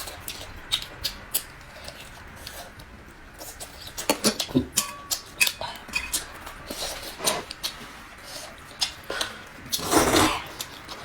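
Close-up eating sounds of noodles being slurped and chewed, with many short sharp clicks and smacks and a longer noisy burst near the end.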